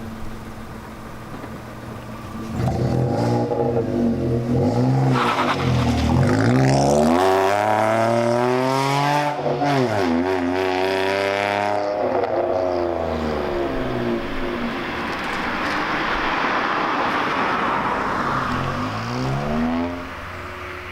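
A car engine with a modified exhaust revving hard, its pitch climbing and falling several times. Then comes a spell of rushing noise, and one more short rev near the end.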